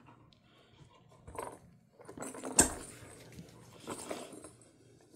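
A dog's green spiky rubber toy ball dropped from its mouth, knocking on the floor and rolling, with the dog mouthing and shuffling around it. The sharpest knock comes about two and a half seconds in, with lighter knocks before and after.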